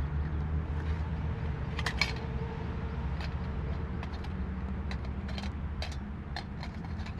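Small camping gear being handled and unpacked: scattered clicks and light rattles, a small cluster about two seconds in, over a steady low rumble.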